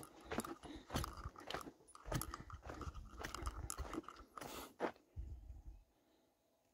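Footsteps crunching on a dry dirt-and-gravel trail, in uneven steps that stop about six seconds in.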